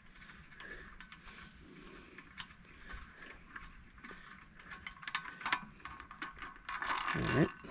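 Small metallic clicks and ticks as the long carburetor mounting bolts on a Briggs & Stratton 8 HP I/C engine are turned out by hand, the bolts threading out of the carburetor. Near the end comes a louder, brief sound whose pitch dips and rises again.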